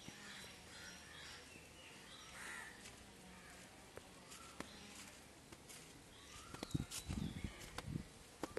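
Crows cawing faintly now and then over quiet outdoor background noise. About two-thirds of the way in comes a short run of louder low thumps and a few sharp clicks.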